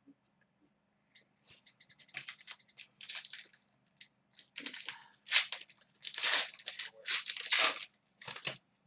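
Trading-card pack wrapper being torn open and crinkled in the hands, a run of short rustling, crackling bursts.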